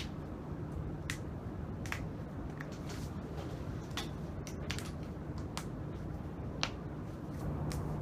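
Spinal joints popping during a chiropractic back adjustment: a string of sharp, separate cracks, about one a second.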